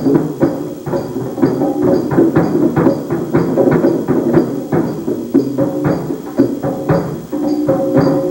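Percussion music: drums and other struck instruments played in a steady, quick rhythm of several strikes a second, with pitched tones sounding under the beats.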